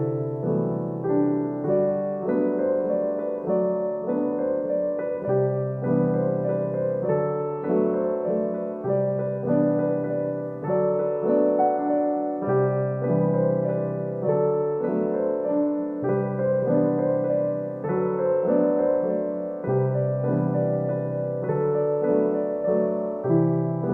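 Background music: piano melody with chords changing about every second.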